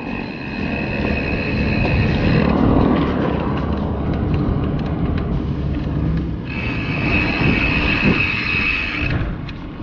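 Wind and road rumble from riding a bicycle, with a high, steady buzz that cuts out about two and a half seconds in and comes back for a few seconds near the end.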